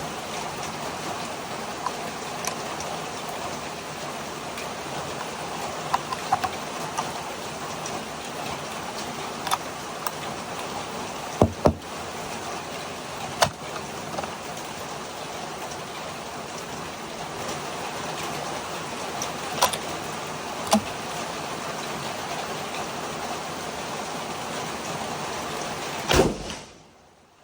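Steady rain hiss with about a dozen sharp rifle shots scattered through it, two in quick succession about eleven seconds in; the sound drops away suddenly just before the end.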